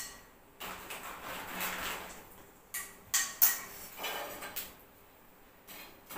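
Wheel-shaped fryum chips frying in hot oil in a kadai, hissing and sizzling in waves. A few sharp clinks of a metal skimmer against the pan come about three seconds in.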